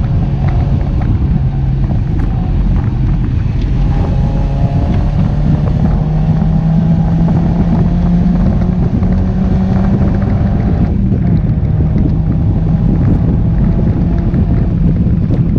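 Mazda MX-5 NC's four-cylinder engine, fitted with a ram-air induction kit, pulling hard under acceleration, heard from inside the open-top cabin with wind rushing past. The engine note climbs steadily, breaks off briefly about eleven seconds in, then climbs again.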